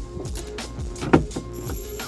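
Background music with a steady beat of deep thumps and a louder hit about a second in.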